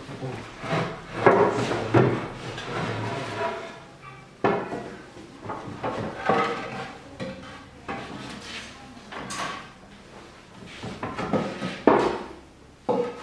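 Irregular knocks and clatter of wooden and hard parts being handled and set down, with about eight sharp knocks spread unevenly.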